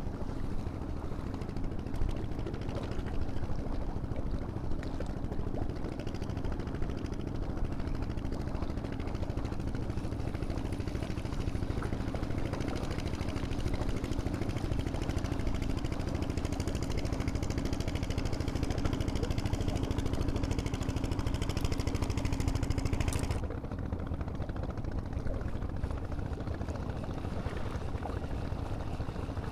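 A small engine runs steadily as a low hum and cuts off suddenly about 23 seconds in, leaving a quieter background hiss.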